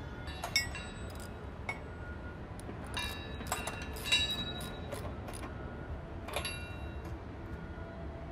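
A hand wrench clinking against steel bolts and a steel mounting bracket while the bracket is bolted to a conveyor frame: a handful of separate metallic clinks that ring briefly, the loudest about half a second in and just after four seconds, over a steady low hum.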